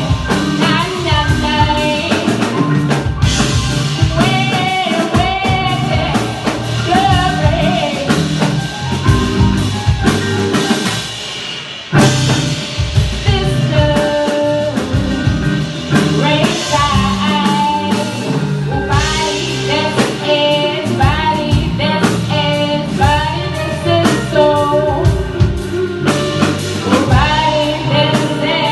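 Live band playing a song: a singer over guitar and drum kit. The music thins and drops back about ten seconds in, then comes in hard again with a full-band hit at about twelve seconds.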